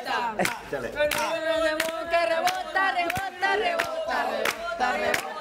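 A small group clapping in a steady rhythm, about one and a half claps a second, while voices cheer and chant along with long held whoops.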